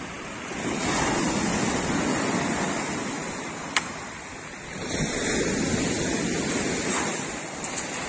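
Sea surf breaking and washing up a pebble beach, swelling twice, the second surge starting about five seconds in. A single sharp click sounds a little before four seconds in.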